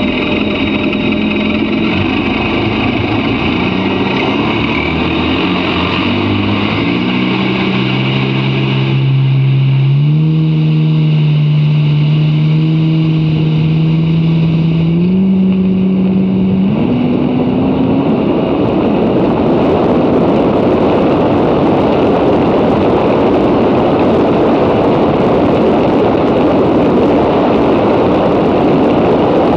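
Jet ski engine under hard acceleration, its pitch climbing in several steps. From about halfway on, a steady loud rushing noise of wind and water at high speed covers it.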